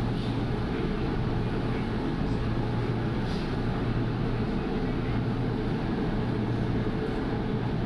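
Steady low rumble and hum of an LRT Line 2 train running along its elevated track, heard from inside the carriage.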